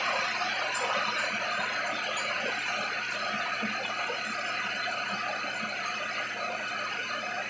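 Steady rushing noise of a commercial kitchen's exhaust hood and gas range, easing slightly over the span.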